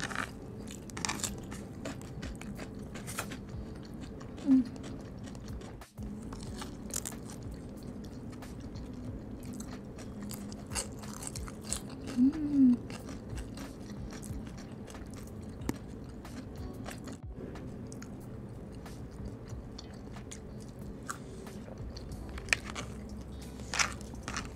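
Close-up eating sounds of crispy spicy fried chicken: crunching bites of the fried skin and chewing, with scattered crisp crunches throughout and two brief louder sounds, about four seconds in and near the middle.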